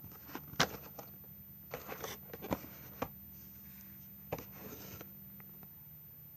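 Hands handling a plastic toy car and its packaging: scattered clicks, scrapes and short rustles, the sharpest about half a second in and a cluster around two to three seconds in, with another clatter a little past four seconds.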